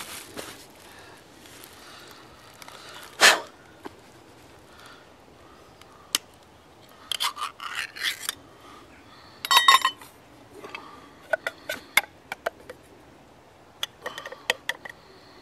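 Scattered metallic clinks, knocks and scrapes as a tin can and a steel cup are handled, with one sharp knock about three seconds in and a short ringing metal clatter near ten seconds. Near the end, light clicks as the tin is tipped against the cup.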